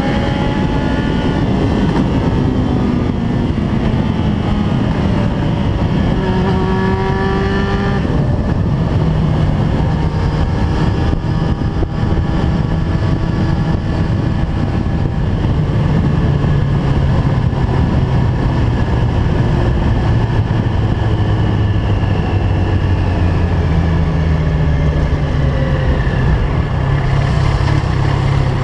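Yamaha FZ1's inline-four engine through a LeoVince GP-style exhaust, riding at speed with heavy wind rush. The revs climb once more a few seconds in, then the engine eases off and the revs fall slowly as the bike slows down.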